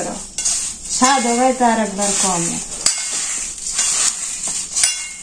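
Puffed rice (khuda muri) being mixed and squeezed by hand on a steel plate, a dry rustling crackle with a few sharp clicks. A voice sounds briefly about a second in.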